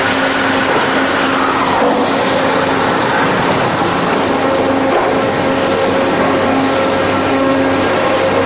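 A log chain conveyor and other wood-mill machinery running: a steady, loud mechanical din with a constant hum.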